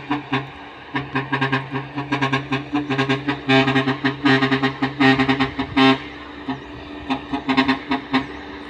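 Truck's musical horn honking a fast staccato tune of short, brassy, pitched blasts.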